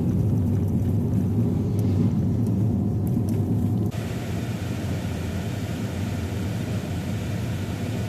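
Car driving on a road: a steady low engine and road rumble. About four seconds in, the sound cuts abruptly to a quieter, hissier noise.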